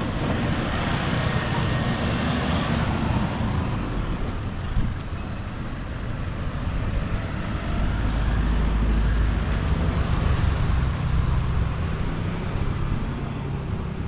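Street traffic: car engines running past, with a steady hiss of tyres and a louder low engine rumble as a pickup truck passes close about eight seconds in.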